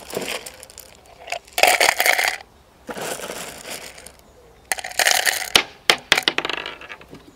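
Small aluminium scrap plates rattling and clinking into a steel-can crucible as they are loaded in, in several short bursts with sharp metallic clicks.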